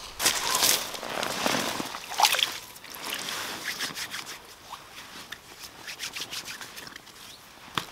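Hands dipping and rinsing in shallow still marsh water, then shaken off, drops pattering back onto the surface. The loudest part is a few rustling, splashing bursts in the first couple of seconds, followed by sparse small drips.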